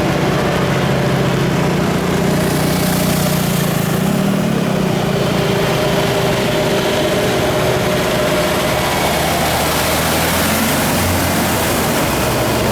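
A motor vehicle engine running steadily, with a broad hiss that swells about two seconds in.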